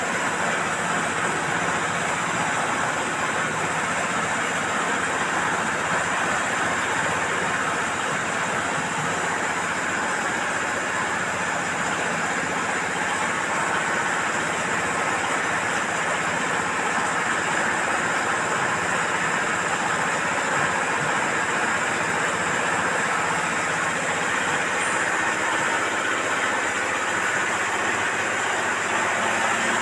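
Livestock-feed ribbon mixer running steadily, its drive engine and turning spiral ribbon making a constant mechanical drone while mixing a batch of feed.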